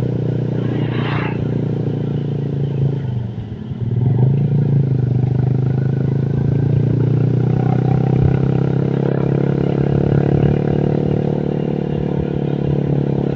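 Motorcycle engine running steadily while riding, with wind noise. The engine eases off briefly about three seconds in, then picks up again and holds steady.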